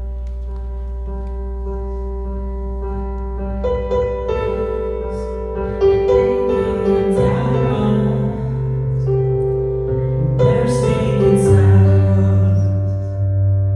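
Opening of a praise song: sustained keyboard and piano chords over a low bass, thin at first and growing fuller about three and a half seconds in.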